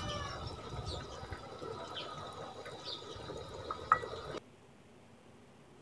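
A pot of beef and potato broth simmering with a faint watery bubbling, and one short sharp click about four seconds in. The sound cuts off abruptly a little after that.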